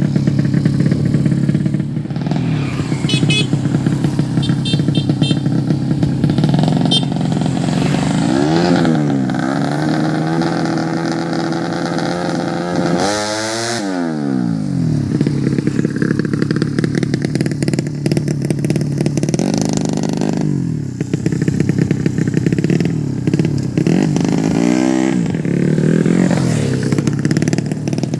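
Tuned 130cc drag-race motorcycle engines running steadily and being revved several times, with a sharp rising-then-falling rev about halfway through.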